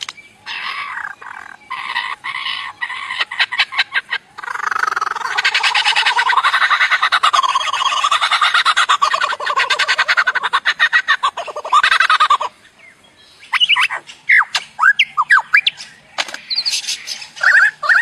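Lyrebird singing a run of mimicked sounds: first short, harsh stuttering calls, then a long, rapid rattling passage of about eight seconds, then quick chirps and whistled glides after a brief pause.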